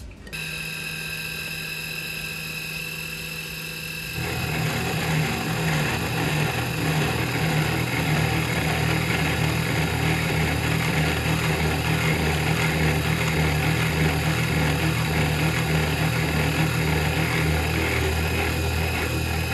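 CNC1310 desktop router's spindle running with a steady hum and high whine. About four seconds in, the end mill starts cutting the sheet steel and a louder, rough milling noise joins it and carries on.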